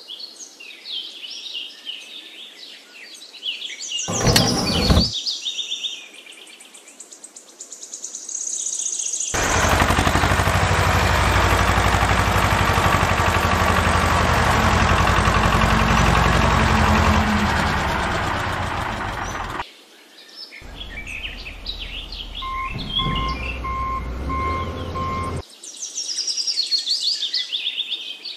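Birds chirping, broken by a sharp loud burst about four seconds in and then a long, loud, even rush of noise lasting about ten seconds. Later a toy tractor's electronic reversing beeps sound in an even series under the birdsong.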